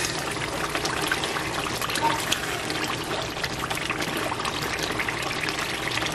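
Red stew sauce sizzling and bubbling in a frying pan on the stove: a steady sizzle full of fine crackles.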